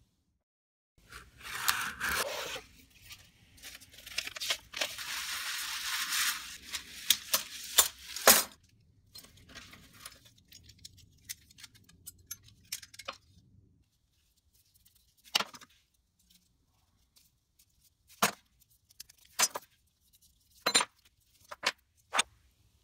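A cardboard shipping box being torn open, tape and packaging ripping and rustling for several seconds. This is followed by loose metal knife parts (rusty steel blades and springs, brass liners) clinking together and being set down as a few separate sharp clicks.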